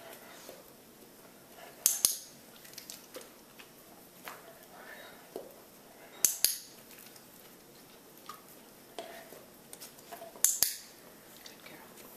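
A dog-training clicker pressed three times, about every four seconds, each a sharp two-part click-clack, marking the dog's correct behaviour. Faint softer taps and rustles come between the clicks.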